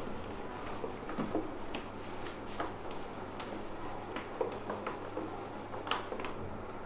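A terry towel rubbed over wet hair and a face: soft, irregular cloth rustles and light taps scattered over a steady low background hum.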